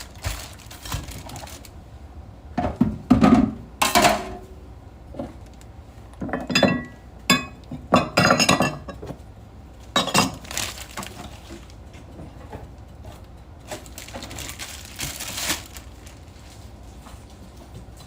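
Dishes and utensils clattering in a kitchen: irregular clinks and knocks in several bunches, the loudest a few seconds in and again around the middle.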